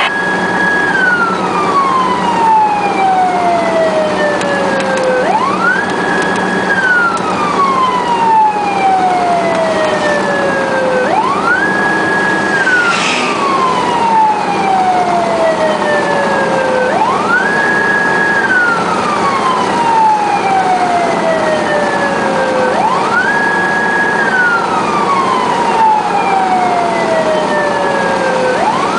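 Emergency vehicle siren on a slow wail, heard from inside the responding vehicle's cab. Each cycle rises quickly, holds briefly at the top, then falls slowly, repeating about every six seconds over steady engine and road noise.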